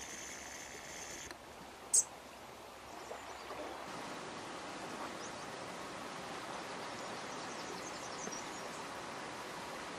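Steady soft outdoor hiss from a calm seashore, with a thin high whine that stops about a second in and one short, sharp high chirp about two seconds in. Faint high chirps come near the end.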